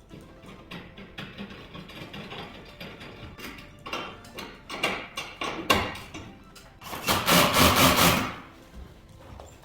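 Installation work noise: a run of knocks and clatter, then a loud rattling burst lasting about a second, about seven seconds in.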